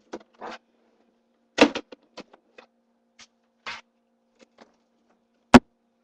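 Handling of a plastic storage bin and its wire-mesh lid: scattered knocks, rattles and clicks of plastic and wire, with a sharp click about five and a half seconds in, the loudest sound.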